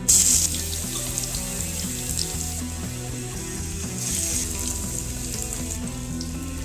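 Crushed garlic hitting a hot pan with a loud sizzle that settles into a steady frying hiss, then crushed ginger added about four seconds in, sizzling up again. Background music plays underneath.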